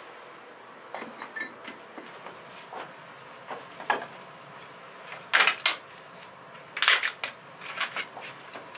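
Hands handling rusty sheet metal, bricks and birch bark at an old brick stove: scattered light knocks and scrapes, with two louder scraping noises about five and a half and seven seconds in.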